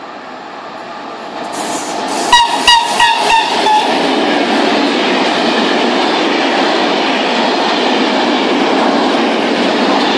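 Freight train of empty stake wagons passing close by: its rumble builds as it approaches, a quick run of sharp ringing metallic clacks comes about two seconds in as the wheels cross rail joints, then the wagons roll past with a steady loud rolling noise.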